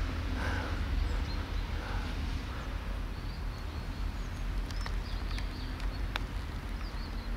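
Outdoor ambience: a steady low rumble, with a few faint, short bird chirps in the second half.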